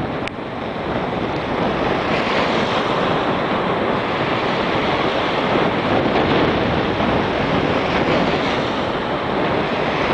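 Steady sea surf washing on the shore, mixed with wind rumbling on the microphone.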